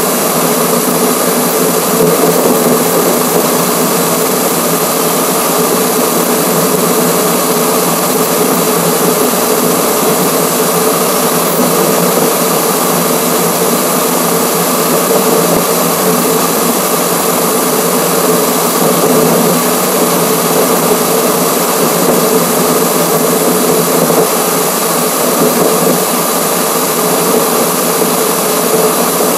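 Steady road and wind noise from a camera mounted at a car's front grille while it drives on a highway, played at six times normal speed. It sounds like an even, unbroken rush with a constant hum running through it.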